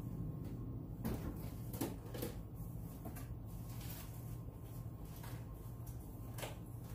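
A few scattered knocks and clunks of kitchen work, like cupboard doors or cookware being handled, over a steady low hum.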